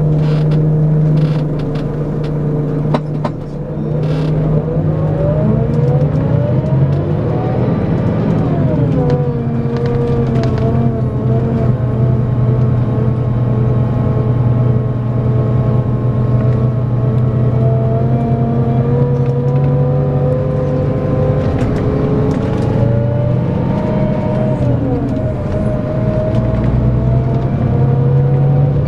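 Scania K410EB6 coach's six-cylinder diesel engine pulling under load. The revs climb and fall sharply as it changes up, about nine seconds in and again about twenty-five seconds in, with steady running between.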